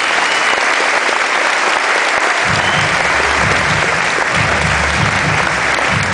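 Audience applauding, dense and sustained. About two and a half seconds in, a low, pulsing bass line of music comes in underneath.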